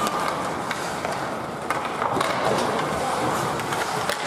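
Ice hockey on the rink: skate blades scraping and carving the ice in a steady hiss, with several sharp clacks of sticks hitting the puck and the ice.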